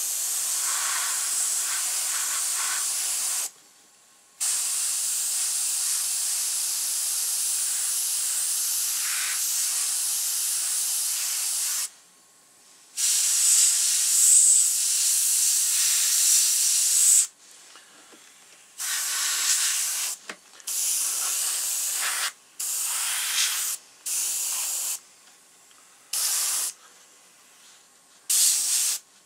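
Airbrush spraying paint in a steady hiss, released in long runs of several seconds at first, then in short spurts of about a second each near the end.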